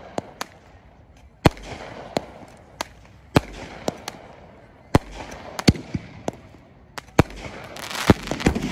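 Fireworks and firecrackers going off: sharp separate bangs of differing loudness, roughly one every half second to a second, each with a short echo. A denser spread of noise builds near the end.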